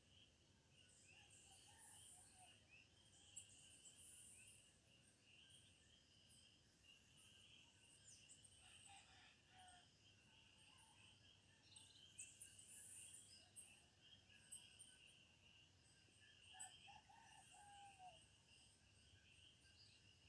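Faint, steady chorus of insects, with scattered short high chirps and calls from birds or frogs.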